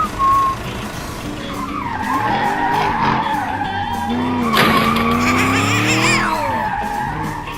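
A vehicle engine revving and whining in rising and falling glides, with a screechy skid that is loudest in the middle, over background music.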